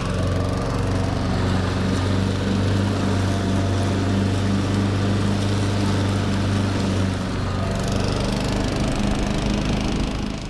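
Cub Cadet Model 80 lawn tractor running steadily while mowing tall grass; its engine note shifts about seven seconds in, and the engine stops right at the end.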